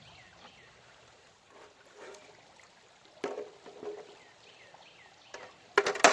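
Prospecting gear being handled at a stream over a quiet background with faint bird chirps. There are a few light knocks, then a loud burst of clattering near the end.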